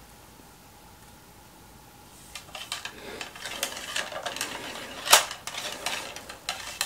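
Cleaning rod being run down an SKS rifle's bore and out through its open action, proving the barrel clear. Light clinking and scraping of metal, with one sharper click about five seconds in.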